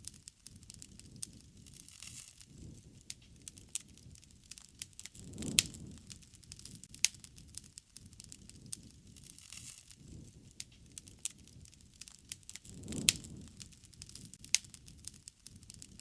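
Wood fire crackling, with sharp pops at irregular moments. A low rush of flame swells briefly about five and a half seconds in, and again near thirteen seconds.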